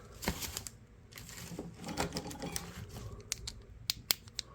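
Light clicking and scraping of a small folding camp knife being handled, metal parts ticking against each other, with several sharp ticks near the end.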